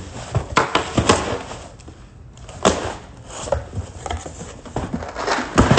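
A cardboard shipping box being rummaged and unpacked by hand: scattered knocks, rustling and tearing of cardboard and paper, with a brief lull about two seconds in.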